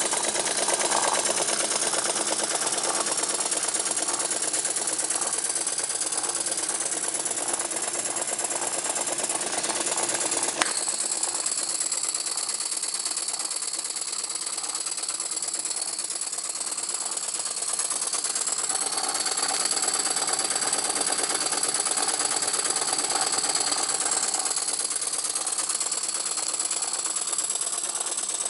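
Jensen #50 model steam engine running under steam from its riveted boiler: a fast, even chuffing and clatter with a steady hiss of steam. A single sharp click about ten seconds in.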